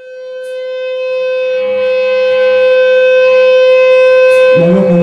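Electric guitar through an amplifier holding one sustained, distorted note that swells in and stays at a steady pitch. A lower, sliding tone joins near the end.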